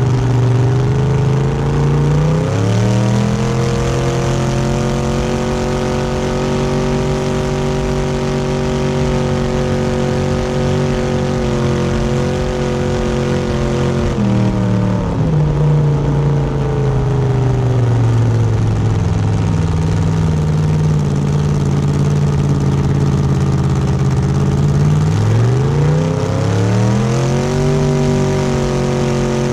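Motorboat engine under way, its pitch rising as the throttle opens about two seconds in, holding steady, dropping as it eases off about halfway through, then rising again near the end. A steady rush of wind and water runs underneath.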